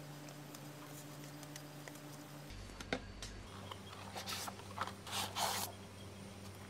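Paper and cardboard packaging being handled: faint rubbing, a click about three seconds in, then a few louder rustles of paper and cardboard between four and six seconds, over a faint steady hum.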